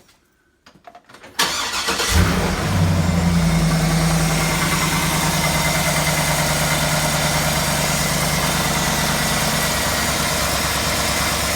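Cold start of a 2007 GMC Yukon Denali's 6.2-litre L92 V8: a few faint clicks, the starter cranks about a second and a half in, the engine catches half a second later, flares up and settles into a steady fast idle. At 220,000 miles it makes a start-up clatter that the owner takes for pushrod chatter and piston slap.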